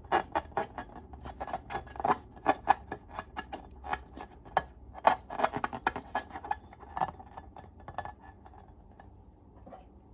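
Slime being squeezed and worked by hand, giving a rapid, irregular run of sticky clicks and pops that stops about eight seconds in.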